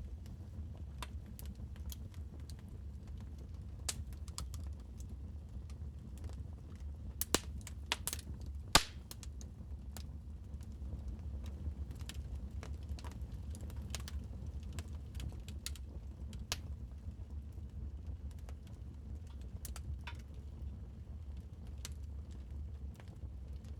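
Wood fire crackling in a fireplace: scattered sharp pops and snaps over a steady low rumble, with a few louder pops a little after seven seconds and once near nine seconds.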